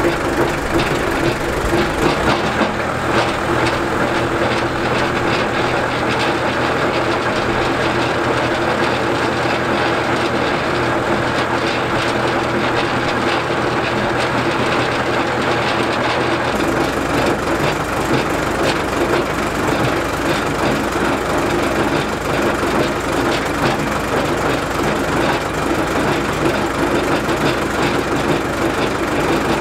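Ford farm tractor's engine running at low speed, its PTO turning the Bush Hog 305 rotary cutter's gearbox and stump-jumper pan with the blades off: a steady mechanical run with a continuous rattle from the cutter, its character shifting a little about halfway through. The gearbox is still low on gear oil, which the owner later blames for it sounding rougher on this first test.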